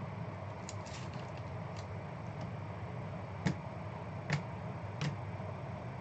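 Trading cards being handled: a few light clicks, then three sharper taps in the second half, over a steady room hum.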